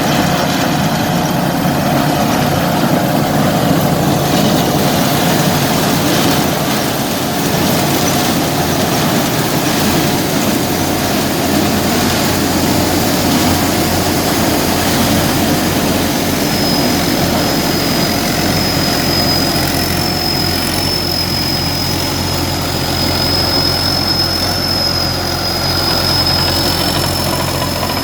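Engine-driven corn sheller running steadily with a loud, continuous mechanical noise; a thin high whine joins a little past halfway.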